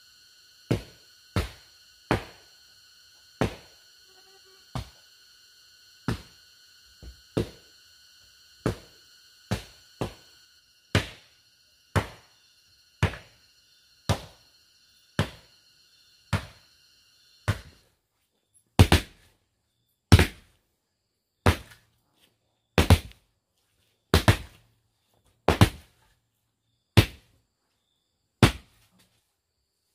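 Wooden tampers beating down a damp earth floor: a steady, unhurried run of dull thuds, about one a second, which grow louder a little past the middle.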